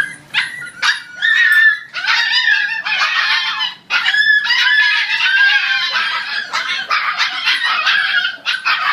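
A litter of Siberian husky puppies whining and squealing together, many high cries overlapping, after a few sharp clicks at the start.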